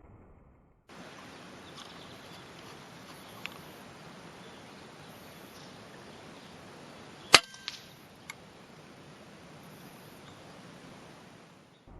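A single rifle shot: one sharp crack about seven seconds in, followed within a second by two fainter clicks, over a steady hiss.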